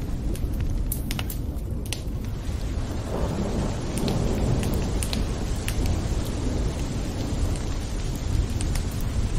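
Steady rain with scattered sharp drop ticks, under a low rolling rumble of thunder that swells about three seconds in.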